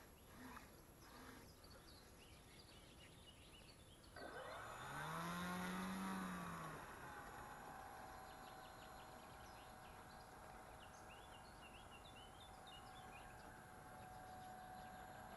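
Electric RC model plane's brushless motor and two-blade propeller (an E-flite Beaver 25e with a 42-size motor and 13x6.5 prop) spooling up about four seconds in: a whine that rises and then falls in pitch over a few seconds as the plane accelerates away, then a steadier, fainter whine as it rolls off down the runway. Faint bird chirps near the end.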